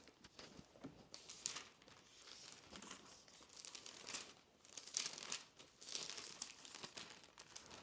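Paper pages being leafed through and rustled: a series of soft swishes and crinkles, the louder ones about a second and a half in and around five and six seconds in.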